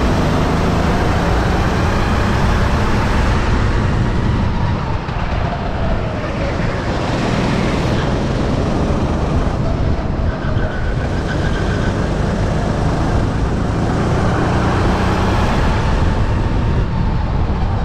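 Sodi RT8 rental kart's engine running hard on track, its revs falling and climbing again and again as it goes through corners.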